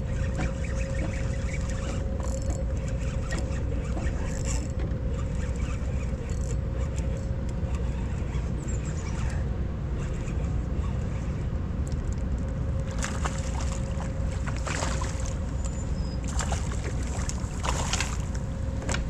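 Steady hum of a motorized kayak's electric motor over a low rumble of water and wind. In the last few seconds come several sharp splashes as a hooked bass thrashes at the surface beside the kayak.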